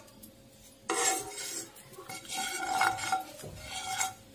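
A steel spoon scraping and knocking around the inside of a nonstick kadhai as it spreads ghee over the pan. It is a run of strokes with a light metallic ring, starting about a second in.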